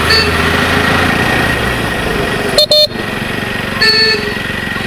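Vehicle horn honking in traffic: a quick double toot about two and a half seconds in and another toot about a second later, over the steady engine and road noise of a motorcycle ride.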